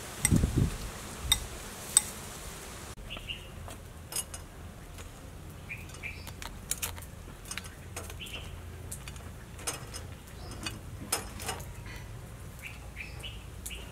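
Metal spatula clicking and scraping on a wire grill rack and a ceramic plate as grilled fish is lifted off the grill, with short bird chirps in the background. Near the start there are a few low thumps and two sharp clicks, the loudest sounds here.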